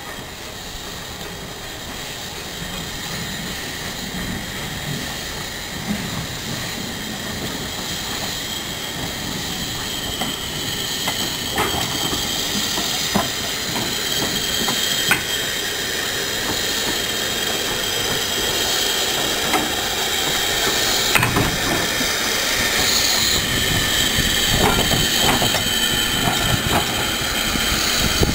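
Small steam tank locomotives, SECR P class No.323 'Bluebell' shunting Stepney and Baxter, moving slowly past close by. Steam hisses steadily and grows louder as they approach, with a few sharp metallic clanks from the wheels and couplings.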